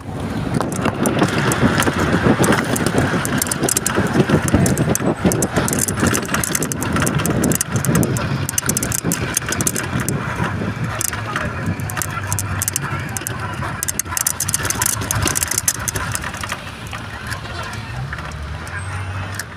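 Road and engine noise of a moving vehicle, heard from inside it as it drives along: a steady low hum under a rushing noise. It grows gradually quieter over the last few seconds.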